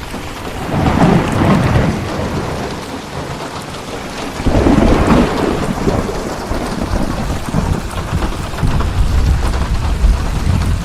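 Steady heavy rain with rolling thunder. Two louder thunder rumbles swell up, one about a second in and one about four and a half seconds in, and a low rumble carries on under the rain.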